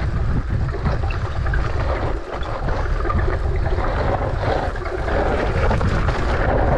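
Wind buffeting the microphone, mixed with the rumble and rattle of a mountain bike rolling down a loose dirt trail.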